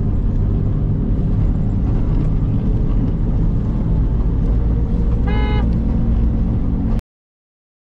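Steady low rumble of a car's engine and tyres heard from inside the cabin while driving, with one short vehicle-horn honk about five seconds in. The sound cuts off suddenly about a second before the end.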